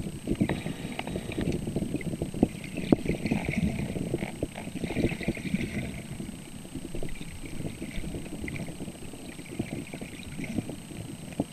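Underwater camera sound: muffled water sloshing and rumbling against the housing, with many small irregular knocks and a thin steady high tone.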